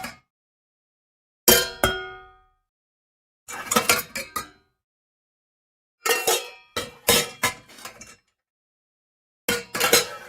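Metal pots and pans clattering and clanging together in several short separate bursts, with ringing metallic tones after the hits. The bursts come about every two seconds, with full silence between them.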